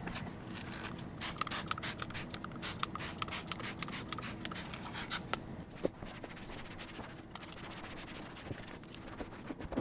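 Hand rubbing and scraping strokes on a surface, quick and scratchy for a few seconds, then sparser and quieter.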